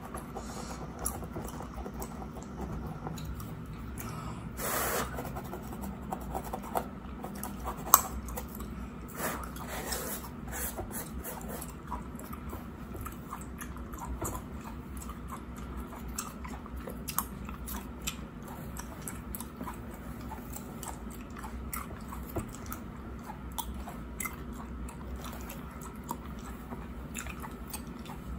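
Close-miked gum chewing: irregular wet smacks and clicks, with one sharp smack about eight seconds in. Mixed in are soft scratches of fingernails and a plastic comb through synthetic hair on a mannequin head, including a brief rasp about five seconds in.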